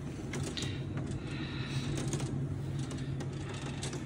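Steady low hum of the cable lift's machinery running as the lift descends inside the volcano, with a faint rattle over it.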